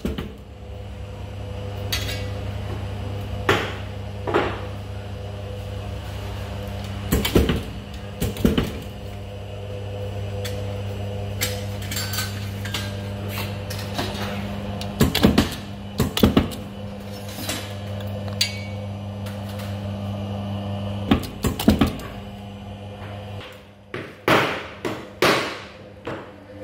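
Swing-arm clicker press for cutting leather running with a steady hum, with sharp knocks at irregular intervals as the head is swung and pressed down on the cutting die. The hum stops about 23 seconds in, and a few more knocks follow.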